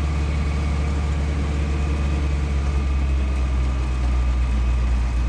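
Farm tractor engine running steadily as the tractor drives along, heard from inside the cab: a deep, even drone with faint steady tones above it.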